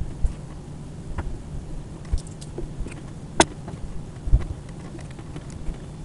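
Scattered small clicks and knocks of wires and plastic parts being handled at the end of an aluminium e-bike battery case, with one sharp click about three and a half seconds in, over a steady low rumble.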